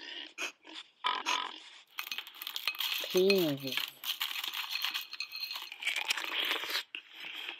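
Crinkling, rattling noise full of small clicks, like paper or plastic being handled, running from about two seconds in until shortly before the end. A woman's voice says "peas" once over it.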